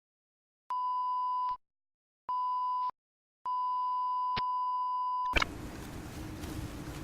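A steady, pure beep tone of the kind used as a censor bleep, sounding three times: a short beep, a shorter one, then a longer one of nearly two seconds, with dead silence between. About five seconds in it cuts off and a steady noisy background rush begins.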